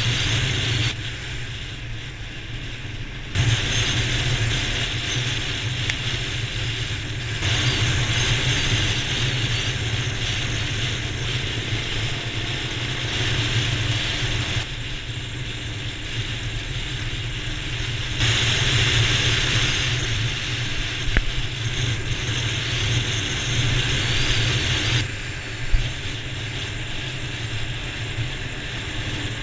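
Dual-sport motorcycle running at speed on a gravel road: a steady low engine hum with a hiss of wind and tyre noise above it. The hiss switches abruptly louder and quieter several times.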